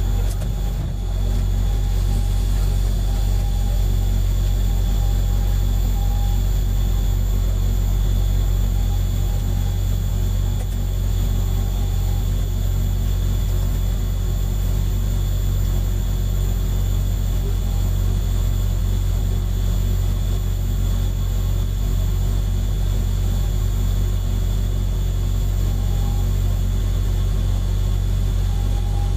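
KTR700-series diesel railcar's engine idling while the train stands at a station: a steady low hum and rumble with no change in pitch.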